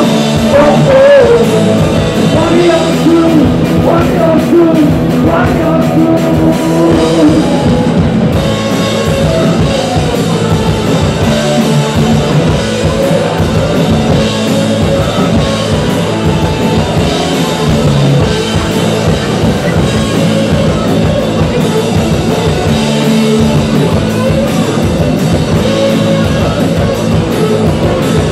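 Live Oi! punk band playing loudly: electric bass, drum kit and saxophone, with a wavering melody line over the first several seconds before the band carries on with a steady groove.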